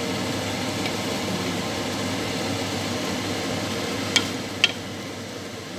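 Pot of molokhia (saluyot) stew with chicken simmering with a steady hiss. Two sharp clicks come about four seconds in.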